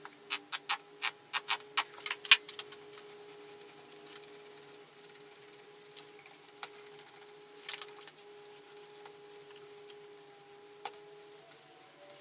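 Plastic glue bottle clicking and tapping as it is handled over the board, a quick run of sharp clicks in the first two seconds or so, then a small hand roller spreading white wood glue over the end-grain board, with only a few scattered clicks. A steady faint hum runs underneath.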